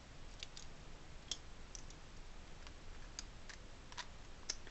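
Plastic pieces of a disassembled 4x4 Rubik's cube clicking and tapping faintly at irregular intervals as they are handled and slid into place.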